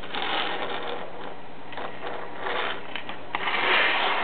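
Camera handling noise: rubbing and rustling against the microphone in irregular bursts, with scattered sharp clicks and the loudest stretch near the end.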